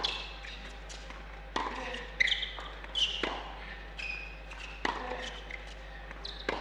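Tennis rally on an indoor hard court: racket strikes on the ball about every second and a half, with ball bounces and short high sneaker squeaks on the court surface.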